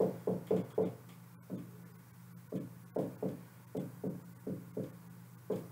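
Dry-erase marker squeaking against a whiteboard in a string of short strokes as figures are written, over a faint steady low hum.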